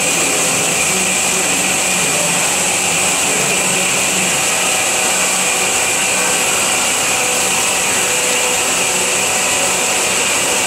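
FMB Omega semi-automatic band saw running steadily, its blade cutting through solid metal bar with a steady high-pitched hiss and whine.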